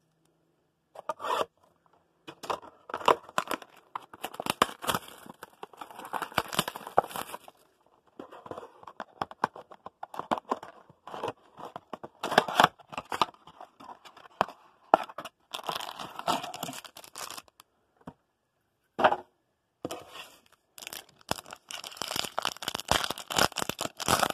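Cardboard box of 2016 Panini Optic football trading cards being handled and opened, then a foil card pack torn open and crinkled. Irregular bouts of rustling, scraping and crackling, with a few short pauses; the pack-tearing near the end is the densest part.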